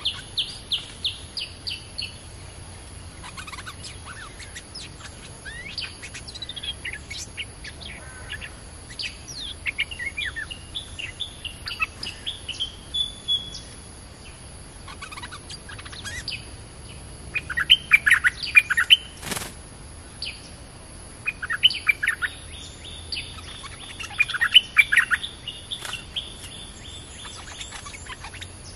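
Bulbuls calling back and forth with short whistled notes and chirps. The calls break into loud bursts of rapid chattering twice in the second half. A single sharp click comes about two-thirds of the way in.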